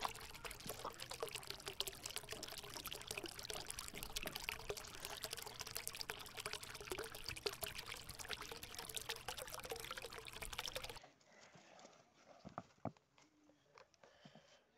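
Rushing water noise, dense with fine crackles, that cuts off abruptly about 11 seconds in; after it only faint small sounds.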